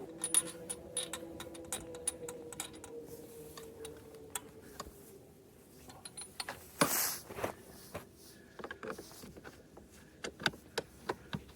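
A wrench reinstalling spark plugs in a snowmobile engine: scattered metallic clicks and clinks of the tool on the plugs, with a brief rushing scrape about seven seconds in.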